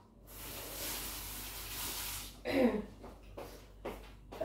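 Water running from a tap for about two seconds, then shutting off abruptly, followed by a short vocal sound.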